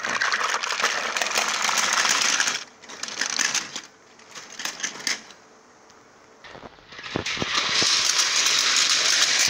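Plastic toy train engine and cars rattling and scraping as they are pushed by hand along the floor. It comes in two long stretches, with a quieter gap in the middle and a few sharp clicks before the second stretch.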